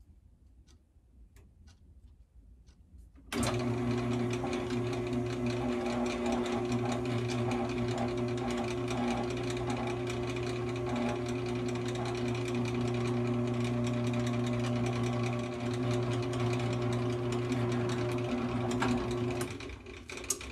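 Drill press switched on about three seconds in, its motor running at a steady speed while a 1/8-inch bit drills a pilot hole through an aluminum engine plate. It is switched off near the end and winds down.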